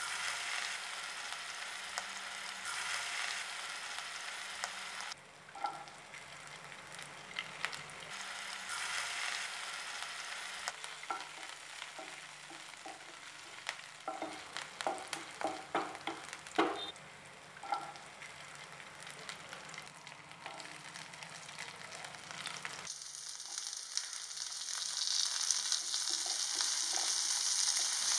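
Chopped garlic, green chillies and curry leaves sizzling in hot oil in a nonstick pan, stirred with a wooden spatula that clicks against the pan. About two-thirds of the way through it changes abruptly to a brighter, louder sizzle as chopped onion, capsicum and tomato sauté.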